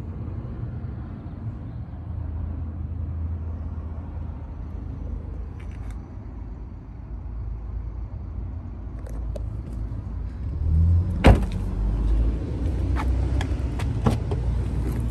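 A car door of a 2016 Hyundai Tucson, the rear passenger door, shut once with a single sharp thud about two-thirds of the way through, over a low steady rumble. A few light clicks follow near the end.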